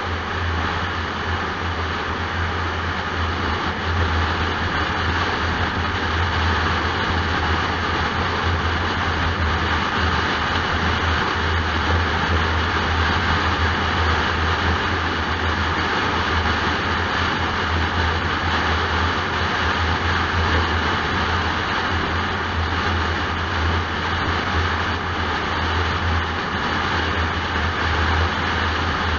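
Steady engine and tyre noise inside a car cruising at motorway speed: an even rush of road noise over a constant low hum, with no change in pace.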